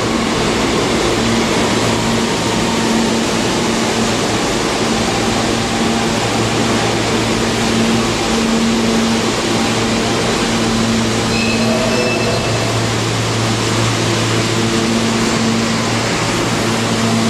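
Steady rush and hum of R160 subway cars standing in the station with their doors open: the cars' air-conditioning and auxiliary equipment are running, with a constant low hum under an even noise.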